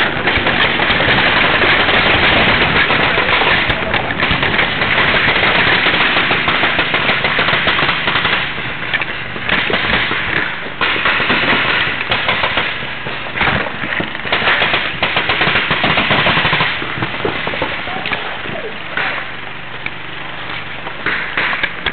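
Paintball markers firing rapidly, a dense run of quick pops, mixed with rubbing and handling noise from the camera carried against clothing. The firing thins out and gets quieter after about 17 seconds.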